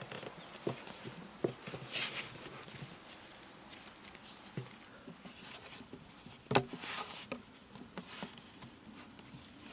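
Scattered light knocks and taps with a few short rustles, and one louder knock about two-thirds of the way through.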